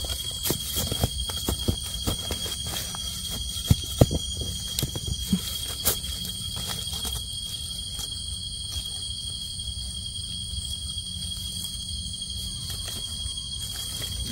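Forest insects droning at one steady high pitch, with scattered snaps and rustles of footsteps through leaf litter and twigs over the first six seconds.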